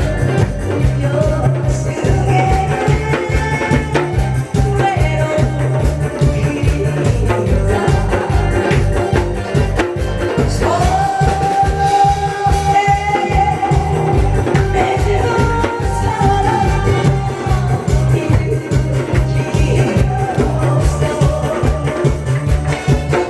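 Upbeat music with a steady beat, its melody holding one long note about halfway through.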